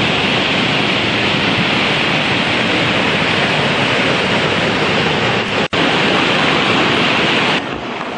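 Steady rushing of a mountain creek's whitewater rapids and falls in heavy flood. The sound cuts out for an instant a little past halfway, then comes back, and drops to a quieter rush near the end.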